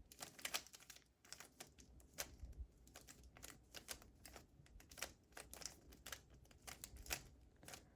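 A plastic Rubik's speedcube being turned by hand during a solve. It makes a faint, quick, irregular run of clicks and clacks, several a second, as the layers snap round.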